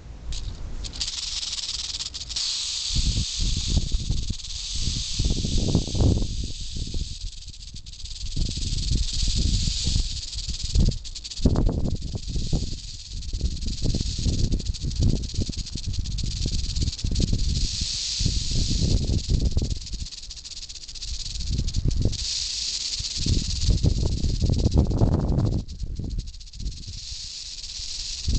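Albino Western diamondback rattlesnake buzzing its tail rattle steadily and without pause, the snake's defensive warning. Irregular low rumbles come and go beneath the buzz.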